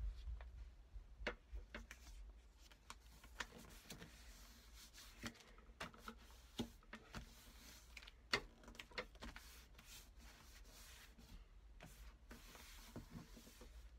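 Faint paper rustling and soft taps as hands lay a glued paper cover onto a paper book jacket and smooth it flat, with scattered small clicks, the sharpest about eight seconds in.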